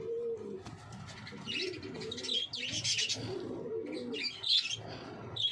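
Pigeons cooing in low, rolling calls several times, with sharper, higher-pitched bird chirps in between.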